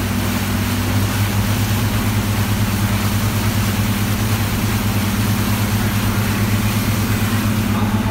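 A boat's engine running steadily, a low drone with a fast throb, over an even hiss.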